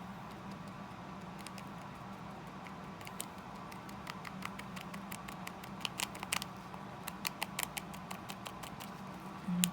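Light, irregular clicks and taps of small nail-art supplies being handled, a few a second, starting about three seconds in, over a steady low hum.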